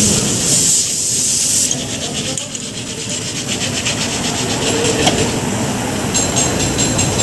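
Metal rubbing and scraping as a rear brake caliper is worked back onto its bracket and disc by hand, with a high hiss at the start and then a run of quick, even clicks, over steady garage noise.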